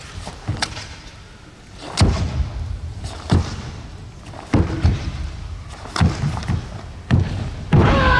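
A karateka performing a kata: sharp snaps of the cotton gi and feet stamping on the competition mat with each technique, about seven sharp hits spaced roughly a second apart. Near the end a loud kiai shout begins.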